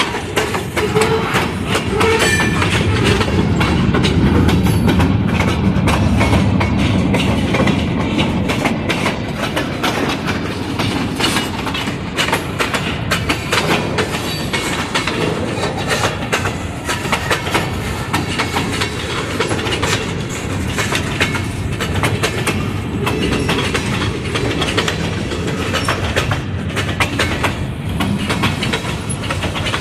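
Freight cars of a mixed freight train rolling past close by: a steady rumble of steel wheels on the rails, with many short clicks and clanks as the wheels pass over the track.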